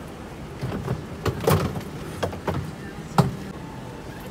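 A run of about seven irregular knocks and clicks over a steady airliner cabin drone in a Boeing 787-9, the loudest a little after three seconds in.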